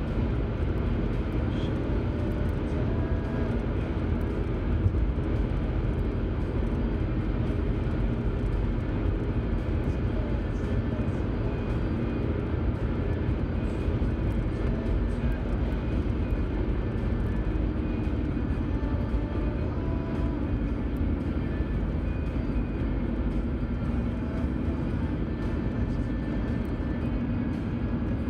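Steady road noise heard inside a car cruising on a highway: tyre rumble and engine running evenly, with no change in pace.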